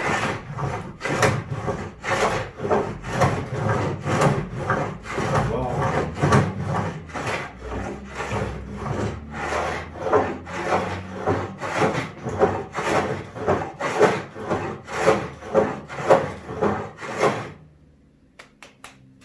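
Hand saw cutting a plank clamped in a wooden Moxon vise, in steady back-and-forth strokes about two to three a second. The sawing stops near the end.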